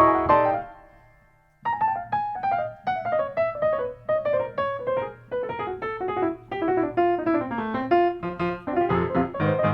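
Piano music: a chord rings out and dies away, then after a short pause a quick run of separate notes steps down in pitch, with more notes played near the end.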